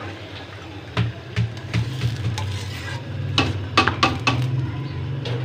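Roti cooking on an iron tawa: a steady low hum under scattered clicks and taps of the griddle and utensils being handled, with a quick run of sharper taps a little past the middle.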